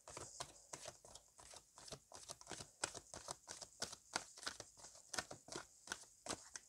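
A deck of oracle cards being shuffled by hand: a steady run of soft, quick card clicks and rustles, several a second.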